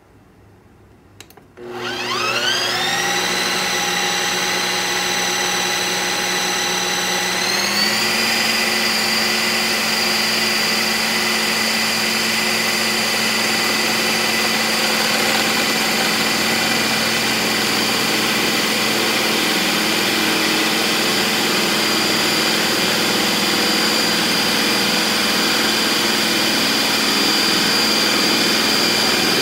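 Ninja Creami ice cream maker processing a frozen pint of pineapple: after a click, its motor starts about a second and a half in and rises quickly to a steady high whine. Near eight seconds the pitch steps up, and it runs steadily from there on.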